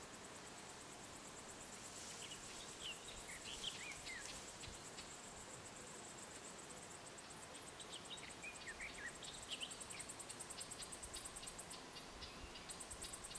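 An insect chirring in a fast, steady, high-pitched pulse, breaking off briefly near the end. Small birds give short chirps about three seconds in and again about eight seconds in.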